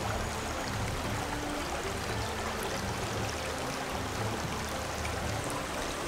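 Steady, even rushing noise, like running water.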